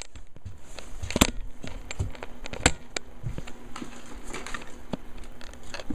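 Scattered light clicks and knocks with faint rustling, the sound of a handheld recording device being moved about.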